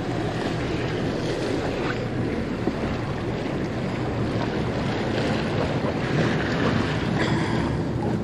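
Wind buffeting the microphone over the steady rush of water along the hull of a 1999 Carver 504 motor yacht under way.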